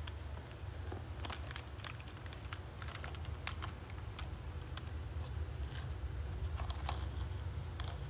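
Scattered small clicks and taps of hard plastic toy truck and trailer parts being handled and fitted together, over a steady low hum.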